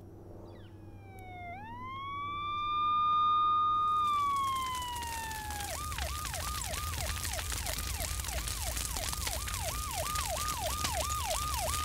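Police siren: one long wail that rises, holds and slowly falls, then switches about six seconds in to a fast yelp of about three sweeps a second. From about four seconds in, a dense crackling hiss runs beneath it.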